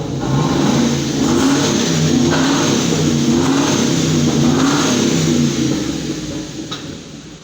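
Hummer H2's V8 engine being revved up and down about four times in quick succession, then settling and fading near the end. The engine has a misfire that is being diagnosed.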